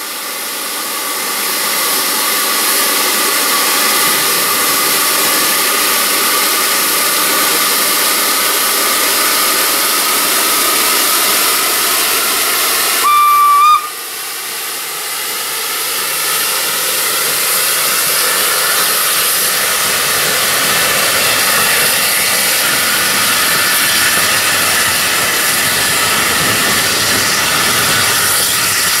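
Steam locomotive No. 4 Loch, a Beyer Peacock 2-4-0 tank engine, with steam hissing loudly and steadily. About halfway through, one short toot on its steam whistle cuts in over the hiss.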